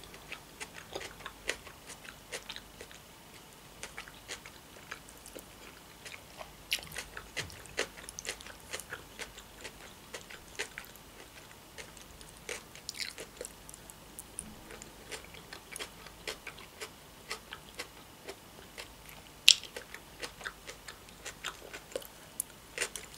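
A person chewing mouthfuls of crab-stick salad with corn and cucumber, close up: many short, soft mouth clicks and smacks, with one sharper click about two-thirds of the way through.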